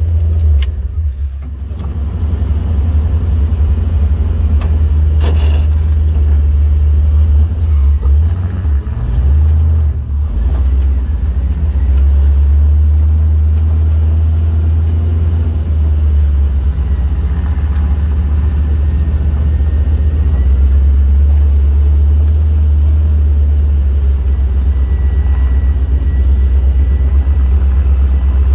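Off-road vehicle's engine running at low speed, a loud, steady low drone heard from inside its cab, with a brief dip and rise in pitch about nine seconds in.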